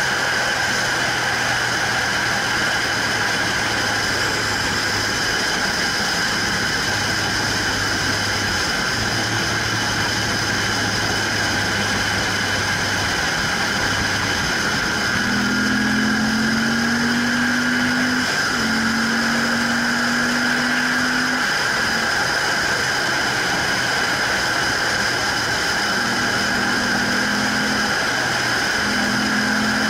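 Motorcycle running at highway cruising speed, its engine note mixed with steady wind and road noise on a bike-mounted camera; the engine note climbs about halfway through.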